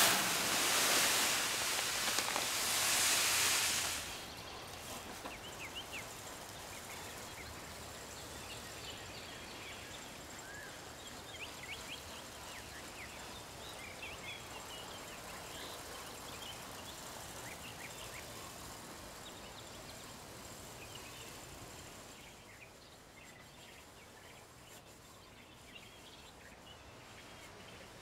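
Granular soil amendment poured from a bag into a plastic broadcast spreader hopper: a loud rushing hiss that stops about four seconds in. After it, birds chirp faintly in the background.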